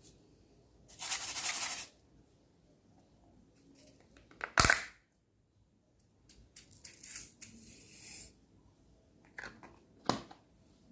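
Clear slime being handled and pressed: a short stretch of crackling about a second in, one sharp pop near the middle, a longer patch of crackling after it, and two clicks near the end.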